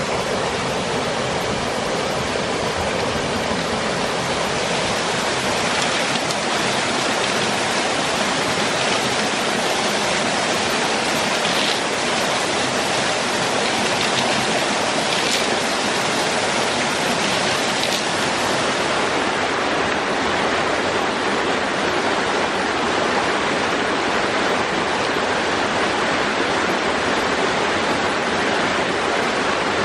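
Steady rush of fast-flowing stream water, slightly duller in tone over the last third.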